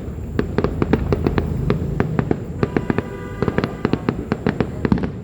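Fireworks display going off in quick succession: many sharp bangs and crackles, several a second, with a brief held tone a little past the middle.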